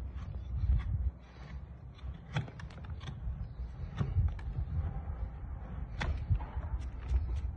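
Scattered light clicks and taps with scraping as a horse's bare hoof is handled and worked by hand, over a low rumble.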